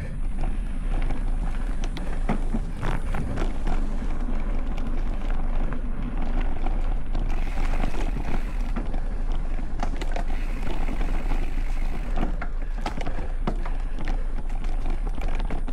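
A Specialized Stumpjumper Evo mountain bike ridden along a dirt trail, heard from a handlebar-mounted camera. Wind rumble on the microphone and tyre noise run steadily, with frequent sharp clicks and knocks mixed in.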